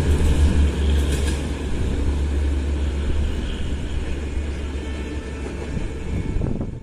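Express train running away at speed after passing through a station: the low rumble of its wheels on the rails slowly fades as it recedes.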